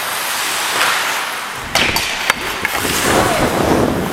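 Ice hockey skates scraping and carving on rink ice, with a few sharp clacks from hockey sticks a little under halfway through. A low rumble of wind on the microphone builds as the skater picks up speed.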